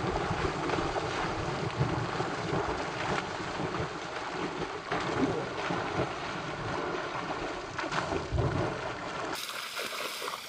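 Wind buffeting the microphone over a steady rushing noise, with a faint low hum underneath. The sound changes abruptly near the end.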